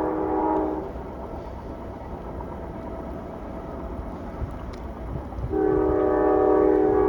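Train horn blowing a chord of several notes that stops about a second in, then the low rumble of the passing train, then the horn sounding again, louder, from about five and a half seconds in.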